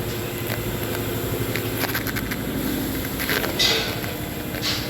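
A steady mechanical hum with a few sharp clicks about two seconds in and two short hisses near the end.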